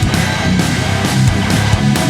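Outro music: hard rock with heavy distorted guitar and drums, a steady beat.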